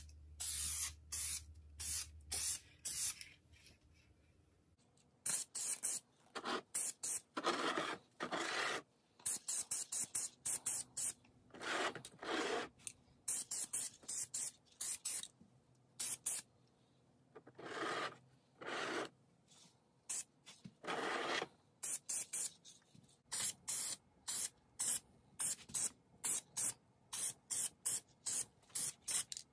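Aerosol spray paint can hissing in many short bursts, with a few longer passes of about a second, as white paint is sprayed onto metal fan parts.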